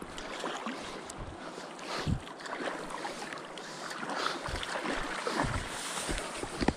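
Shallow river water sloshing as someone wades toward the bank, with a few dull low bumps under steady wind noise on the microphone.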